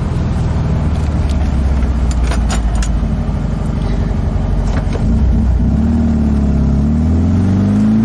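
VW Type 3 Fastback's air-cooled flat-four engine running as the car is driven, heard from inside the cabin, with a few light clicks in the first half. Over the last couple of seconds the engine note rises as it accelerates.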